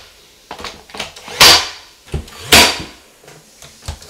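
Heavy knocks on a wooden wall panel being worked loose and fitted with a hand tool: loud thuds about a second apart, with lighter clicks and taps between them.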